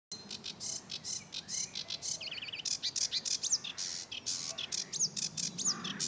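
Sedge warbler singing: a fast, jumbled stream of scratchy chattering notes mixed with a quick warbled trill and several down-slurred whistles.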